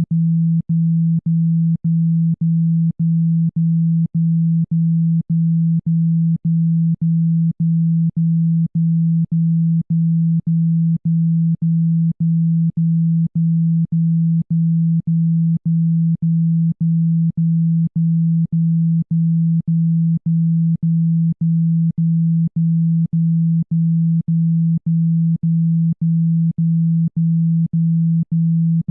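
Speaker-cleaning tone: a loud, low, steady electronic hum that cuts out briefly about twice a second in an even rhythm. It is played to shake water and dust out of a phone speaker.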